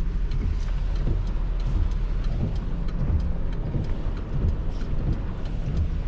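Truck engine running with a steady low hum, while scattered light ticks of rain patter over it.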